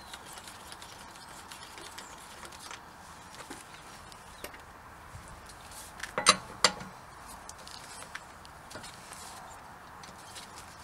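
Metal tools clinking during jacking and rear-wheel removal: faint scattered taps, then two sharp metallic knocks about half a second apart, a little past the middle.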